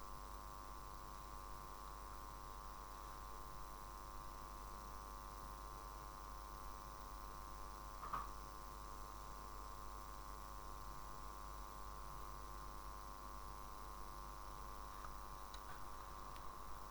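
Steady electrical mains hum with one sharp click about eight seconds in and a few faint clicks near the end.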